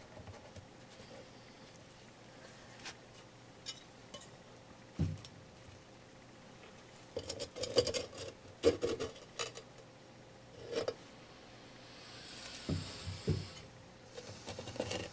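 Broken glazed ceramic cookie jar pieces clinking, tapping and scraping against each other as they are handled and fitted together, with a quick run of sharp clinks about eight seconds in. A soft rustle comes and goes near the end.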